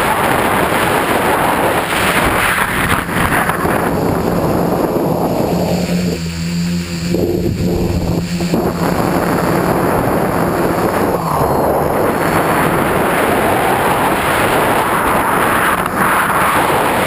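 Tricopter in flight, heard from its own onboard camera: wind rushing over the microphone together with the hum of the motors and propellers. About six seconds in, the wind noise eases for a couple of seconds and the steady motor hum comes through more plainly.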